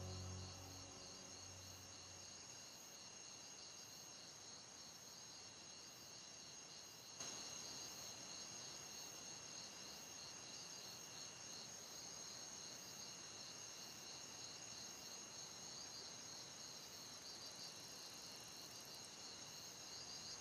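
A faint, steady chorus of night insects chirping high-pitched with a slight pulse. It gets a little louder about seven seconds in.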